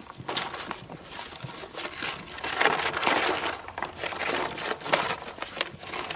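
Horse eating with its muzzle to the ground close to the microphone: irregular crunching and rustling of chewing and nosing through feed and dry ground.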